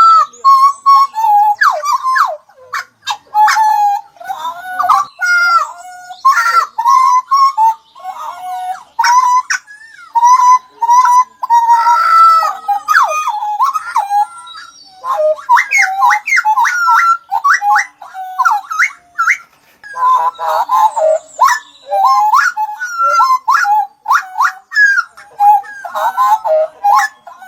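Songbird singing a rapid, varied song of loud whistled notes, with higher chirps and trills laid over them and only short pauses.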